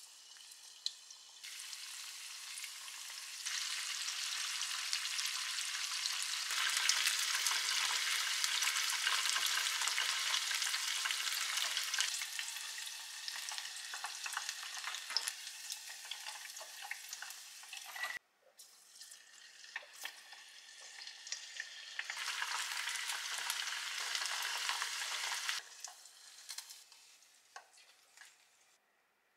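Chicken karaage deep-frying in a small pot of oil: a dense, steady sizzle that swells as more pieces go in. It cuts off suddenly about 18 seconds in, comes back, then dies away near the end.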